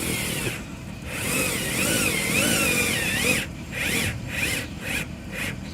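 Cordless drill running: a whine that rises and falls in pitch with the trigger for about two seconds, then several short trigger bursts.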